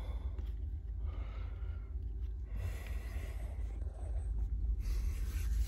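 A man breathing close to a phone microphone, two audible breaths about two seconds apart, over a steady low rumble.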